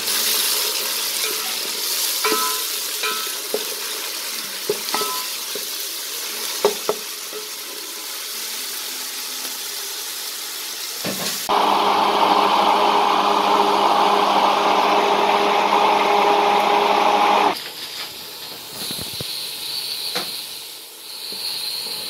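Sliced onions sizzling in hot oil in a pot, with scattered clinks of a spatula. About halfway through, an immersion hand blender runs steadily and loudly for about six seconds, then cuts off suddenly. After it, a spice masala sizzles as it is stirred with a spatula.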